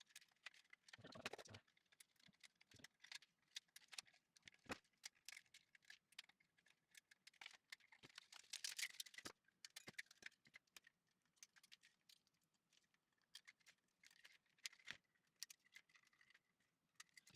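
Faint, irregular clicks and small snaps of plastic support branches being cut and worked loose from a 3D-printed figure.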